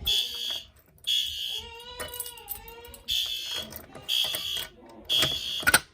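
Fire alarm horn sounding in the temporal-three evacuation pattern: three short, high-pitched blasts about a second apart, a pause, then three more. This is the system in alarm after a pull station has been pulled.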